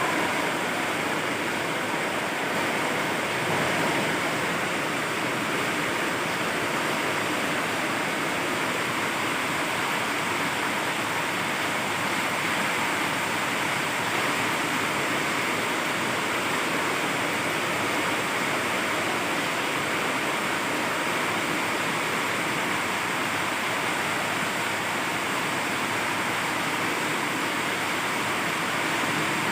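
Heavy rain pouring down steadily, an even hiss with no letup.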